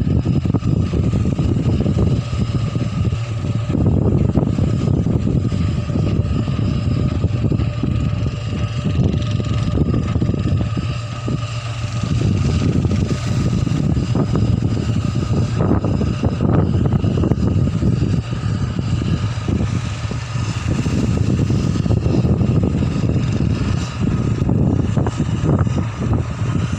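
Dredger's engines droning steadily: a deep rumble that rises and falls unevenly, with a faint steady whine above it.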